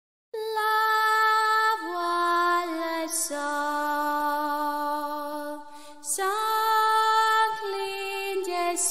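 Slow, lullaby-like music: a woman's voice sings a wordless melody in long held notes, with audible breaths between phrases about three and six seconds in.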